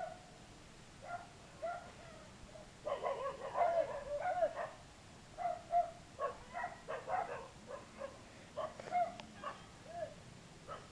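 A dog barking over and over as it chases a cyclist, faint, in irregular runs of short barks with a dense flurry in the middle.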